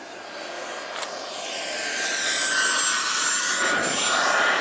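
Remote-controlled model airplane's motor and propeller whining at a high pitch, getting louder as it comes closer. There is a single sharp click about a second in.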